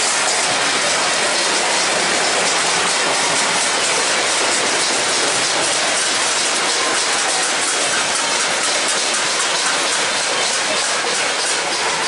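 Many people clapping and banging steel plates (thalis) from the surrounding apartment balconies. Together they make a dense, steady clatter.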